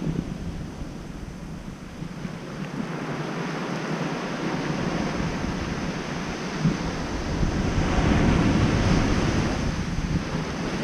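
Ocean surf washing onto a sandy beach, swelling louder about eight seconds in. Wind rumbles on the microphone throughout.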